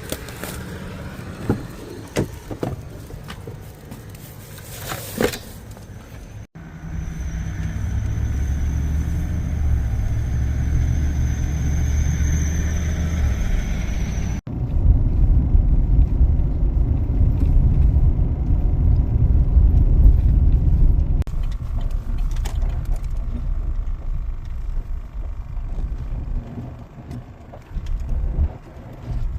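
A motor vehicle's engine and road noise as a steady low rumble, cut into several short segments that change abruptly. There are scattered clicks and knocks in the first few seconds, and a thin high whine rides over the rumble in the middle segment.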